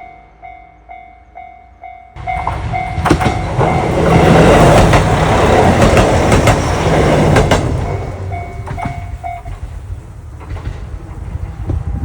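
Japanese railroad crossing warning bell dinging at about two strikes a second while a train passes. The train's rush starts suddenly about two seconds in, is loudest mid-way with wheel clacks, then fades. The bell stops near the end.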